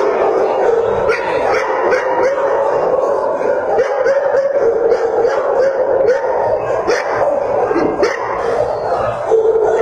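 Many shelter dogs barking, yipping and howling at once in a kennel block, a loud, continuous din of overlapping voices.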